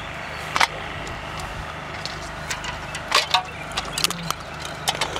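Cooked lobster shells being cracked and pulled apart by hand: a handful of sharp cracks and snaps, the loudest a close pair about three seconds in, over a steady low hum.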